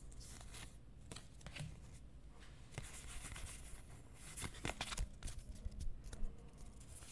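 Pokémon trading cards being handled and rearranged by hand: soft rustles and light flicks of cards sliding over one another, busiest about two thirds of the way through.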